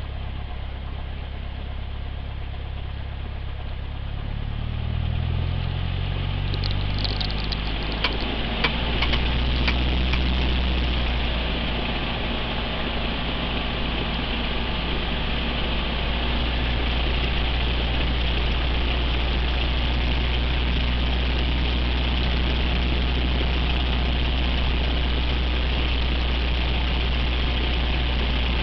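Cessna 172's piston engine and propeller idling, then revs rising over a couple of seconds about five seconds in and holding steady at a higher speed while the aircraft stands still, as in a pre-takeoff engine run-up. A few light clicks come as the revs come up.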